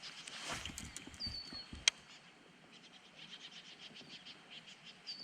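A faint high bird whistle, a note that slides down and then holds, heard about a second in and again near the end. A sharp click comes just before two seconds, and a light, uneven high ticking follows.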